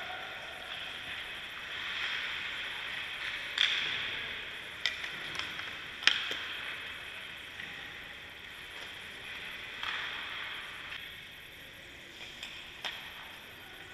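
Ice rink sounds of hockey practice: skate blades and goalie pads scraping on the ice in swelling hisses, with several sharp clacks of stick on puck and puck on goalie gear, the loudest about six seconds in.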